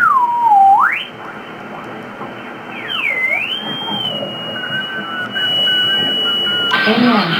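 ICOM IC-7700 HF transceiver's receiver audio while tuning across the 80-metre band: hiss with whistling carrier tones that glide up and down in pitch as the dial turns, settling into a steady high whistle once tuning stops. Near the end the hiss turns suddenly brighter and fuller.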